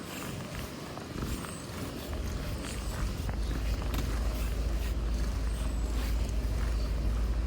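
A deep, steady rumble that swells about two to three seconds in and then holds, over a faint outdoor hiss with a few small clicks of handling or steps.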